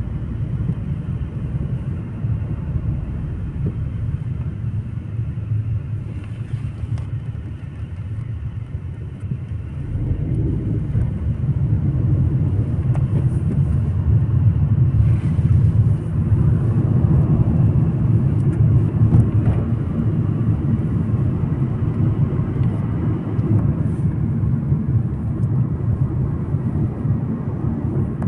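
Car road noise while driving: a steady low rumble of engine and tyres that grows louder about ten seconds in and stays up.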